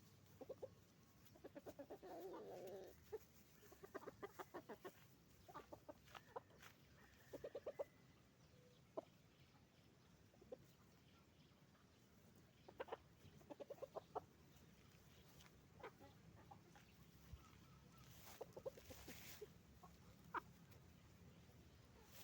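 Hens clucking in short repeated runs and scattered single clucks, with a longer, louder squawk near the end.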